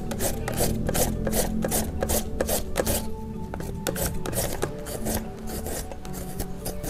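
A carrot being shredded on a plastic julienne grater: a fast run of rasping strokes, about four a second, that thin out and grow fainter about halfway through.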